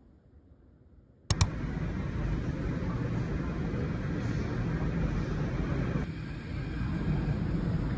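Near silence, then about a second in two sharp clicks and a sudden start of the steady rumble and hiss of a moving subway train heard from inside the carriage.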